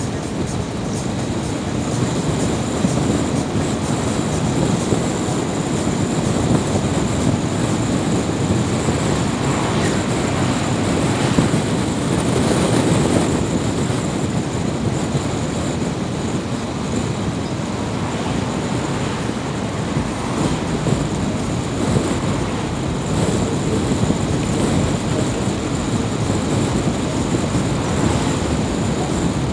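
A car driving at road speed: steady tyre, road and engine noise.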